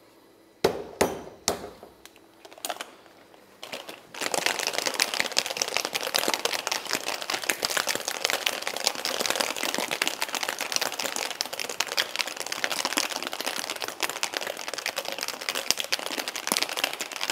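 Ice cubes going into a stainless steel Boston shaker with a few sharp clinks and knocks, then the two-piece shaker is shaken hard: a dense, loud rattle of ice against metal for about thirteen seconds. This is the wet shake with ice that chills the cocktail after its dry shake.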